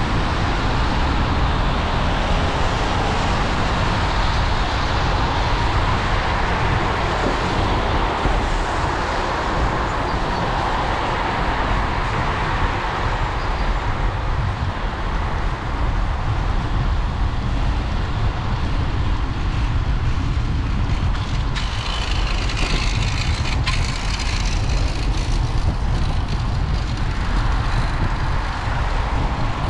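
Steady riding noise from a bicycle-mounted GoPro on wet pavement: low wind rumble on the microphone and tyre hiss, with car traffic going by on the adjoining road. A brighter hiss rises between about 22 and 26 seconds in.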